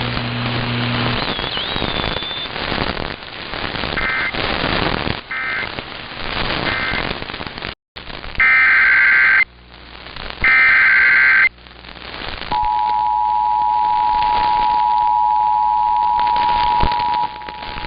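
Emergency Alert System broadcast audio. Radio static carries three short warbling data bursts, the EAS end-of-message code. After a brief dropout come two louder, second-long SAME header data bursts. About two-thirds of the way in, the steady two-tone EAS attention signal starts and holds.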